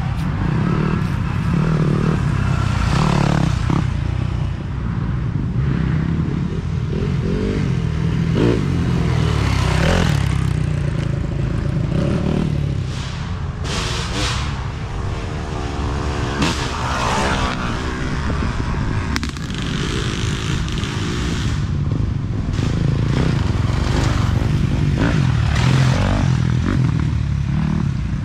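Off-road dirt bike engines revving up and down as riders work through a wooded trail. One engine's pitch rises and falls in a sweeping rev about halfway through.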